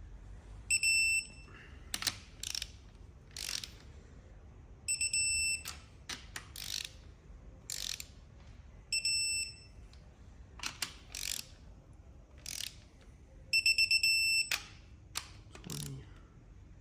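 Digital torque wrench with a ratchet head tightening cylinder head studs on a BMW N54 engine to a first-pass torque of 20. Rasping ratchet strokes are broken by four short high beeps as each stud reaches the set torque; the last beep is longer and pulsing.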